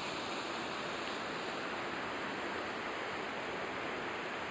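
Waterfall and the shallow rocky stream below it rushing: a steady, even water noise.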